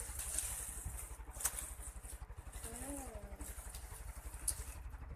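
Bubble wrap and plastic packaging rustling and crinkling as it is pulled off a phone box, with two sharp crackles, over a steady low engine rumble.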